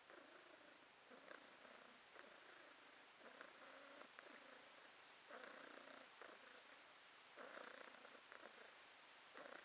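Domestic cat purring with its face right up against the microphone, a soft purr that swells and eases with its breathing about every two seconds.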